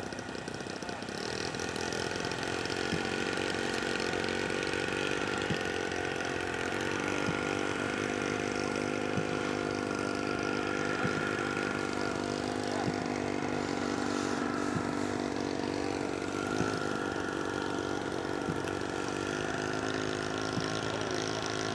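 Engine of a radio-controlled model airplane running, growing louder in the first couple of seconds and then holding a steady buzz that shifts in pitch a few times as the throttle changes.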